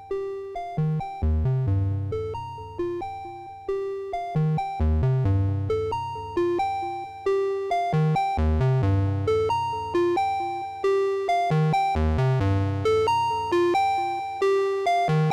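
IK Multimedia UNO analog monosynth playing a repeating sequenced pattern of short notes, each starting sharply and fading, over a low bass part, with reverb tails from a Meris Mercury 7 reverb pedal.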